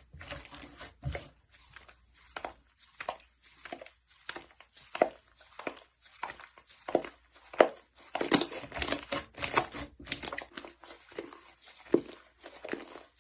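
Slime being squished and pressed, giving an irregular run of short crackles and pops.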